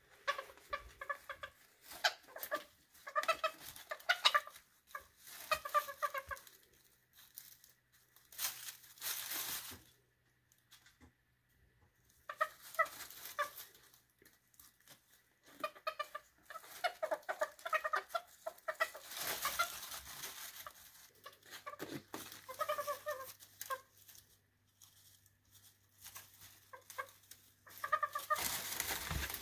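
Serama bantam chickens clucking in bursts of rapid short notes, several times with pauses between. Brief rustles, like movement in wood-shaving bedding, come in a few times.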